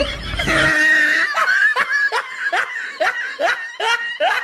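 Laughter: a run of short 'ha-ha' bursts, about three a second, after an opening held sound.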